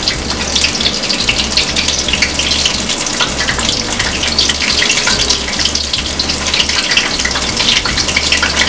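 Chickpea-batter pakoras of oyster mushroom and cauliflower deep-frying in hot vegetable oil in a pan: a steady, dense sizzle full of fine crackles.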